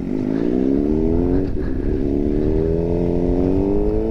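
Sport motorcycle engine accelerating, its pitch rising. It shifts up about one and a half seconds in, then pulls up again more slowly in the next gear.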